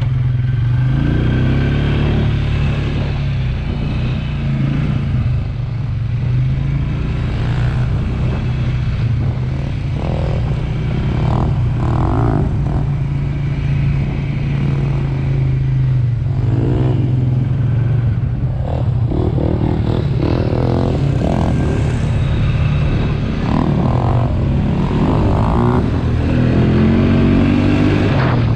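ATV engine running steadily under way, with a constant low drone and scattered knocks and rattles from the machine.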